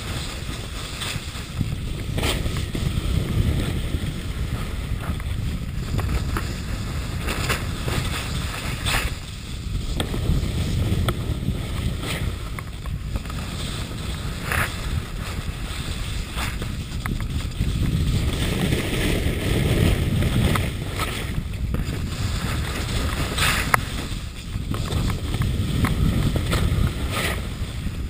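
Wind rushing over a camera microphone during a fast downhill run on snow, with short scrapes of edges carving the packed snow every second or two.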